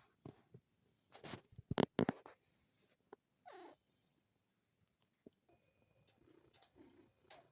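Munchkin cat yawning, the yawn ending in one short squeak that falls in pitch. A few brief loud noises come about a second in.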